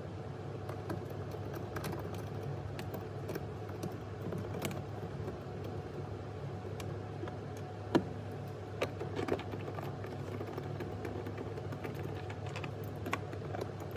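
Small irregular clicks and taps of a hand tool working out the door panel's 10 mm bolts in the door trim, with one sharper click about eight seconds in and a few more after it, over a steady low hum.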